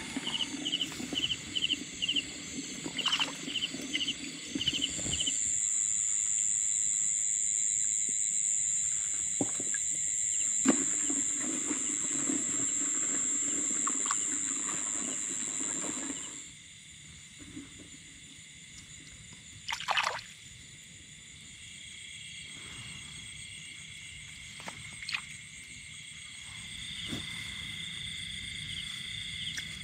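Night chorus of insects and frogs in a flooded rice paddy, with rapid chirping pulses at first and a loud, high, steady trill that sets in about five seconds in and stops about sixteen seconds in. Hands slosh in the shallow paddy water, with a short sharp noise about twenty seconds in.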